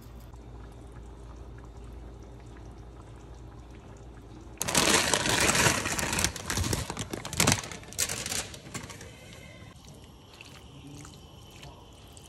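Fresh pasta dropped into a pot of boiling water: a sudden loud splashing and bubbling about four and a half seconds in that dies down over the next few seconds. Before it, only a low steady hum.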